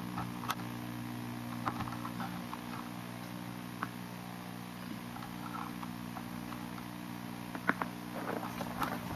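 Footsteps crunching on icy snow, irregular short crunches that come closer together near the end.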